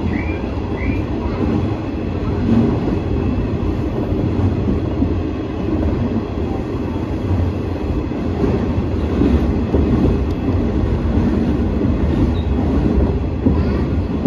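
KRT 8000 series diesel railcar running along the line, heard from inside the cab: a steady low rumble of the diesel engine and wheels on the rails.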